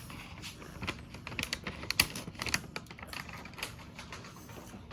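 Irregular light clicks and crackles, several a second, uneven in spacing and strength.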